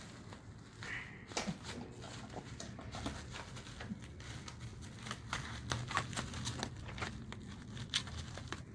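Bubble wrap crinkling as it is handled and cut open with scissors: a scatter of short, sharp crackles and clicks.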